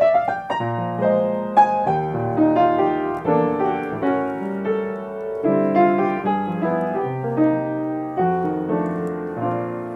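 Acoustic upright piano played with full chords under a melody line. The final chord is held and fades away near the end.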